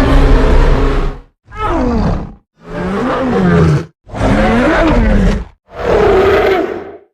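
A string of King Kong roar and grunt sound effects, five in a row, each one to two seconds long and cut off cleanly with a brief silence before the next; several swoop down and back up in pitch.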